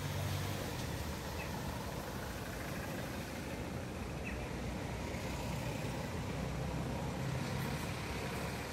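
Steady road traffic noise: a low vehicle rumble over an even background hiss.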